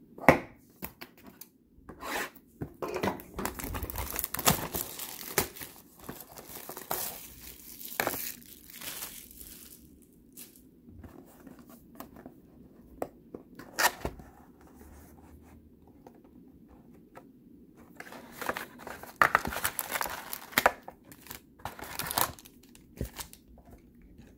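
Plastic shrink-wrap being torn and crinkled off a sealed trading-card box by hand. It comes in bursts, most through the first ten seconds and again around the twenty-second mark, with a few sharp clicks and taps of the box being handled.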